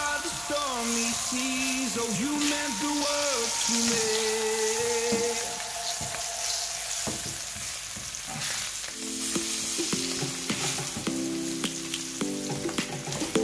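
Bitter melon slices sizzling as they fry in oil in a nonstick pan, with a spatula scraping and clicking against the pan as it turns them. Background music plays over it.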